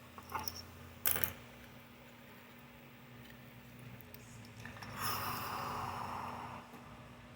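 Workbench handling noises: a few light clicks, a sharp tap about a second in, then a hiss lasting about a second and a half.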